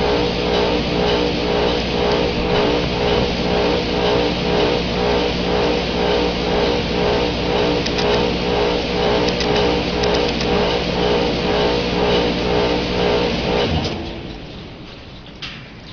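2008 Goodman packaged heat pump running in cooling mode, a steady hum with a regular pulsing beat, then shutting down about 14 seconds in: the sound drops away sharply as the unit cuts off, leaving a much fainter sound. A few light ticks near the end.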